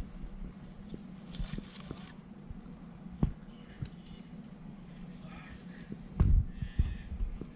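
Scattered knocks and clatter over a steady low hum, with one sharp knock about three seconds in and a louder cluster of knocks near the end; faint voices in the background.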